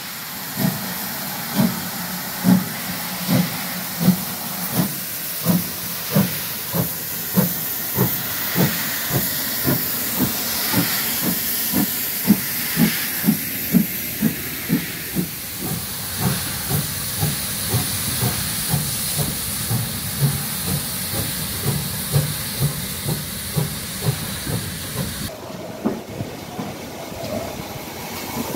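GWR 5600-class 0-6-2 tank locomotive No. 6695 pulling away with its train: regular exhaust chuffs over a steady hiss of steam, quickening from about one beat a second to about three a second as it gets under way, then fading as it draws off. The sound changes abruptly near the end.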